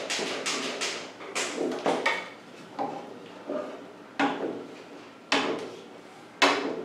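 Dry-erase marker writing on a whiteboard: a series of short scratchy strokes, roughly one a second, as formulas and lines are drawn.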